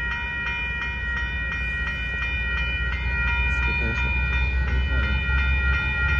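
Railroad crossing bell ringing steadily with rapid repeated strikes, over the low rumble of an approaching Union Pacific freight train that grows louder near the end.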